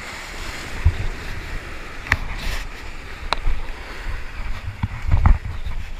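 Surf washing and breaking over jetty rocks, with wind on the microphone, and a few sharp knocks and thumps close by, the loudest about five seconds in.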